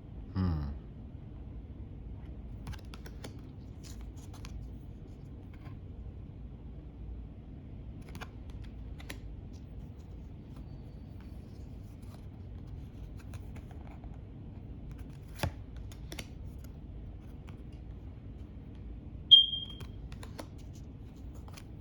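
Faint scattered clicks and taps of stiff, smooth tarot cards being handled and laid down, over a steady low room hum. About 19 seconds in there is a short, loud, high beep.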